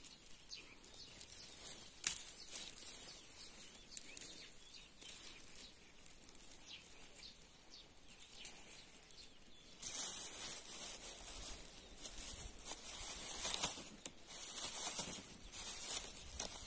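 Faint rustling and snapping of pine branches and needles as green pine cones are picked off by hand: scattered light clicks at first, then busier, louder rustling and crackling from about ten seconds in.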